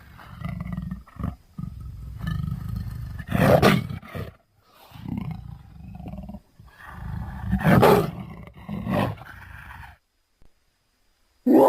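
Big-cat creature growls and roars, mixed from leopard and tiger recordings: low rumbling growls broken by two loud roars, about three and a half and eight seconds in. It goes silent about ten seconds in, and another loud sound starts just before the end.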